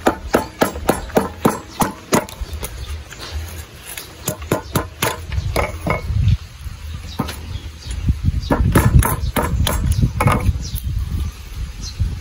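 A meat cleaver striking on a wooden plank: sharp knocks, about two to three a second for the first two seconds, then scattered blows, with a low rumble in the middle.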